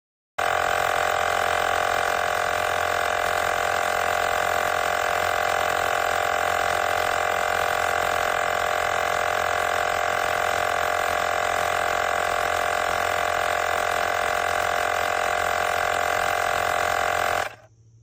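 AIRSURE portable tire inflator's small electric air compressor running steadily. It starts abruptly just after the beginning and cuts off suddenly near the end.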